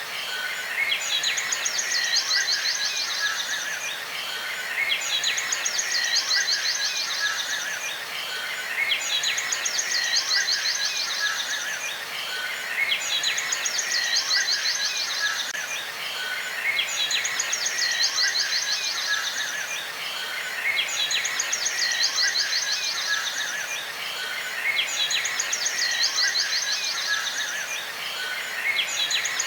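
Bird calls in fast, high chittering trills over a steady outdoor hiss. An identical phrase repeats about every four seconds, like a looped nature ambience track.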